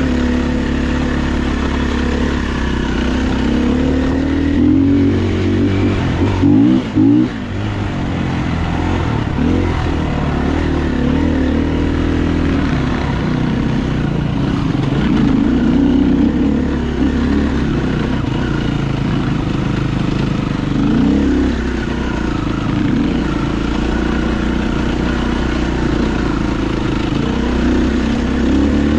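KTM dirt bike engine running as the bike is ridden, the revs rising and falling with the throttle. There is a brief dip in the engine sound about seven seconds in.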